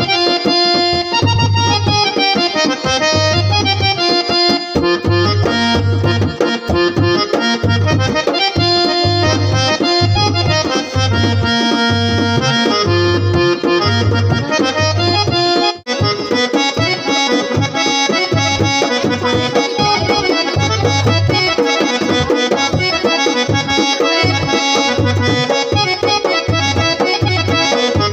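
Instrumental folk-song interlude: an electronic keyboard plays a reedy melody over dholak hand-drumming and a steady low beat. The music drops out for a split second about halfway through.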